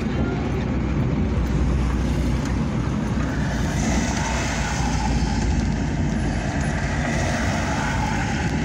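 Engine and road noise inside the cab of a moving truck: a steady low rumble with a hiss over it.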